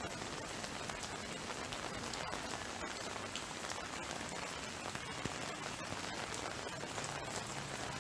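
Heavy rain falling steadily: a dense, even hiss full of close, quick drop impacts, with no thunder in this stretch.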